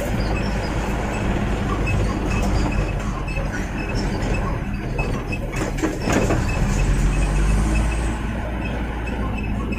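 Truck engine running under way on a rough dirt road, heard from inside the cab, with the cab and body rattling and clattering over the bumps. A few knocks come about six seconds in, followed by a heavier rumble.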